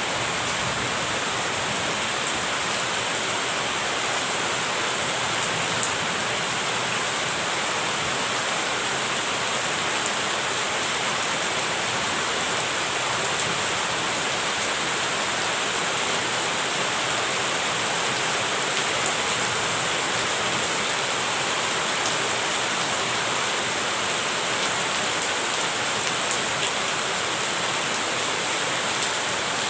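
Steady rain falling, an even hiss with occasional single drop ticks.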